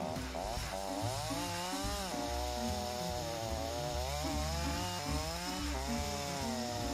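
Petrol chainsaw cutting through a konara oak log, its engine pitch rising and sagging every second or so as the bar is pressed into the cut. The chain has gone dull, perhaps from cutting sand in the wood, so it cuts poorly when pushed too hard.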